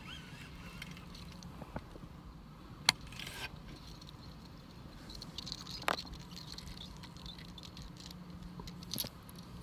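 Handling noise from a baitcasting rod and reel as a swimbait is reeled in and lifted from the water: three sharp clicks or knocks about three seconds apart, the first the loudest, over a low steady hum.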